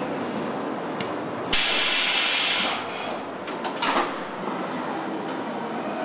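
Car assembly-line machinery running with a steady industrial hum. A short hiss about a second in is followed by a louder hiss lasting about a second, and a few sharp clicks and clanks come near the middle.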